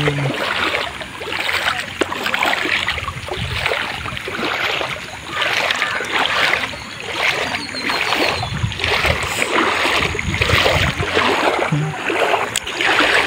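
Legs wading through shallow muddy floodwater: a rhythmic swish and splash of water with each step, roughly one a second.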